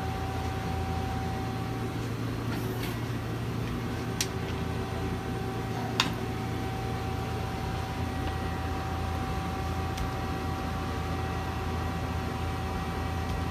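Steady hum of a 2007 Mazak Nexus QTN 250MSY CNC lathe standing with its spindle stopped, with a sharp click about six seconds in and a lighter tick shortly before it.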